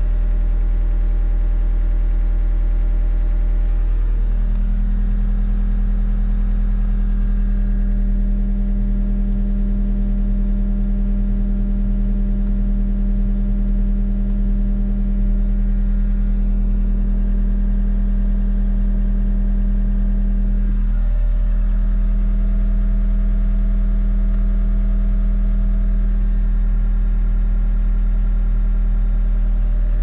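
John Deere 333E skid steer's diesel engine running steadily at idle. Its speed steps up slightly about four seconds in and dips briefly about twenty-one seconds in.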